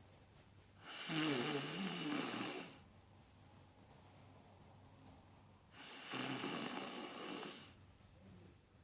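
Snoring: two long, loud snores about five seconds apart, the first with a wavering pitch.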